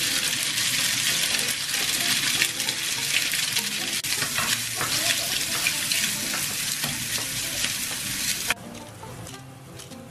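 Diced food sizzling loudly in melted butter in a small nonstick frying pan, with a spatula scraping and stirring it. About eight and a half seconds in the sizzle drops off suddenly to a much fainter one.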